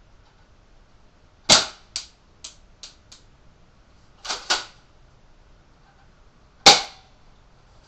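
Double Eagle M58A pump-action airsoft shotgun being fired, two sharp cracks about five seconds apart. A few lighter ticks follow the first shot, and the pump is racked back and forth in a quick double clack between the shots.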